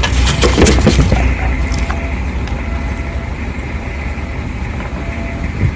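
Dog eating, a dense run of clicks and smacks of chewing in the first two seconds, then fewer, over a steady low rumble.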